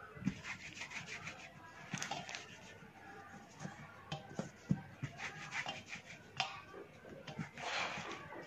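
Hands rolling soft poha-and-potato dough into a long rope on a chopping board: faint rubbing of palms and dough over the board, with scattered light taps.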